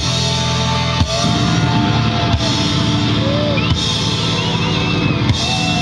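Live rock band of electric guitars, bass and drum kit playing out the instrumental ending of a song after the last sung line: a loud sustained chord with heavy drum hits roughly every second and a half and a guitar line bending over the top.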